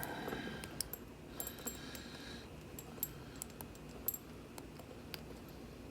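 Light metallic clicks and rattles of lock picking tools and a lock being handled, with scattered sharp ticks throughout and a short scraping rustle about a second and a half in.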